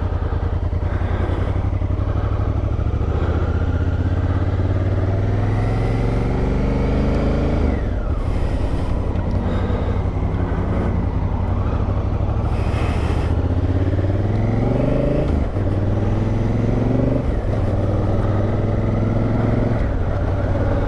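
2019 Honda Africa Twin's 998 cc parallel-twin engine accelerating away under load, its pitch climbing and then dropping sharply at each of three upshifts.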